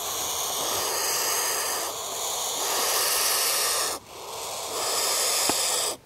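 Turkey vulture chicks hissing: long breathy hisses with a short break about four seconds in, the defensive hiss of vulture nestlings disturbed at the nest.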